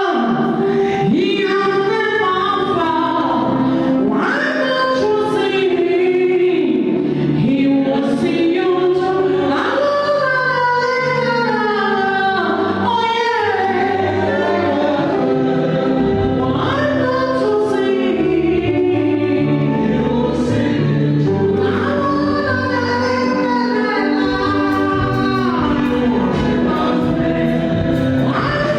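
Gospel choir singing, with held notes sliding between pitches over a steady low accompaniment.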